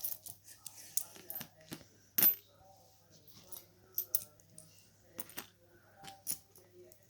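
Coins clinking as they are handled and dropped: a string of irregular sharp metallic clicks, the loudest about two seconds in.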